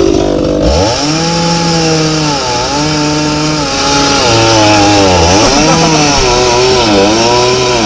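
Recorded chainsaw sound effect played back loudly from an MP3 player: a chainsaw engine revving, its pitch climbing about a second in, then held and dipping and climbing again several times.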